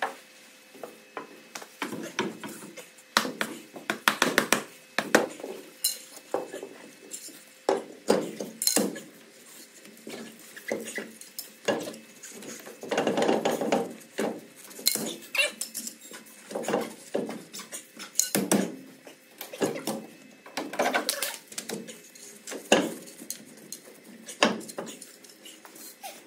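Scattered metal clanks and knocks as a lorry's dual-tyre wheel is hung on the hub studs and its wheel nuts are fitted, with a longer run of clattering about halfway through.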